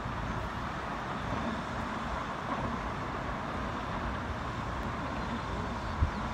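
Steady outdoor rumble and hiss of wind and road traffic, with one brief low thump near the end.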